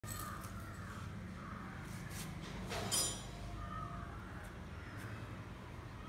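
Raspy squawks and chirps from a young African grey parrot and a cockatiel, with one loud, harsh screech about three seconds in.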